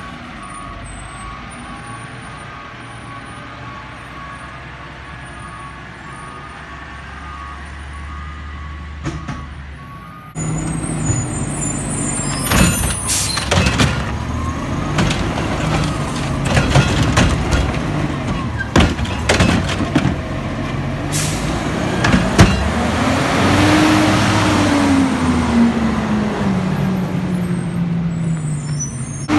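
Garbage truck at work. First a steady low engine hum with a faint repeating beep. Then, louder, clattering knocks and bangs over the engine, which rises and then falls in pitch near the end.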